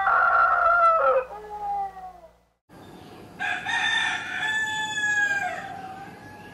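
Rooster crowing twice. The first crow trails off about a second in, and after a brief silence a second crow starts about three seconds in and fades away near the end.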